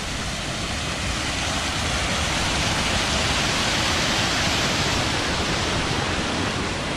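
Water rushing over a small dam at a spring-fed swimming hole, a steady noise of falling white water that grows louder about a second in and eases slightly near the end.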